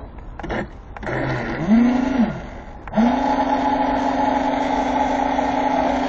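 Battery-powered remote-control airboat's electric fan motor spinning up. It runs up briefly and winds down, then about a second later spins up again and runs at a steady pitch.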